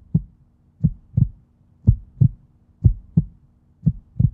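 Heartbeat sound effect: pairs of low thumps, lub-dub, repeating evenly about once a second over a faint steady low hum.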